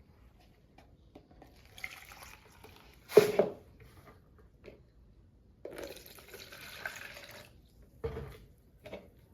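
Lye solution (caustic soda dissolved in water) being scooped and poured with a measuring cup, in several short splashing pours.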